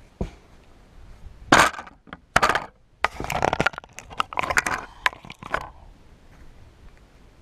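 Dry forest-floor litter and twigs crackling and crunching under hands and knees, in a string of short sharp cracks and scrapes, most of them between about a second and a half and six seconds in.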